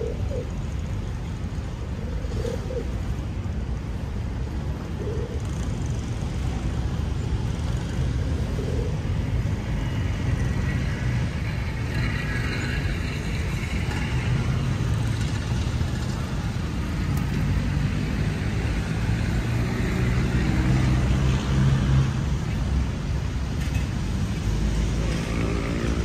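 City road traffic: motor vehicles running and passing with a steady low rumble, swelling a little about three-quarters of the way through.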